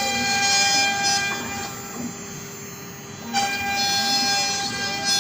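Axiom AR8 CNC wood router machining: a steady high whine made of several tones, with the axis motors gliding up and down in pitch as the gantry changes speed and direction. The high whine drops away for about two seconds and cuts back in abruptly.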